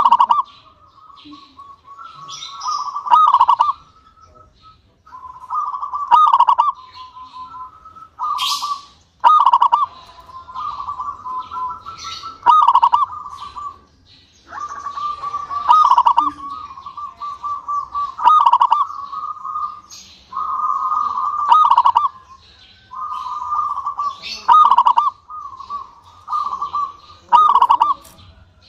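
Local zebra dove (perkutut) singing its cooing song over and over. Each phrase is a run of quick coos on about one pitch with a louder note near its end, repeating every two to three seconds. It is a lively, much-singing bird of the kind kept as a lure to set other zebra doves singing.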